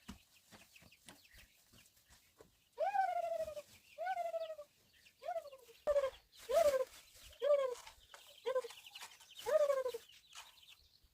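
An animal calling over and over: about eight short calls, each dropping in pitch, starting about three seconds in.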